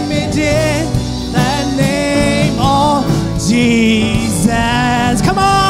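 Live church worship music: a band playing with voices singing held, wavering notes over it.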